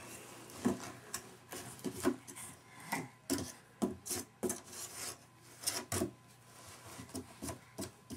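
A baby's hands slapping and scratching at a cardboard box and its flaps, in irregular taps and scrapes.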